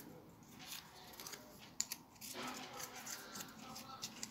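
A small folded paper slip being unfolded by hand, with faint crinkling and rustling of paper.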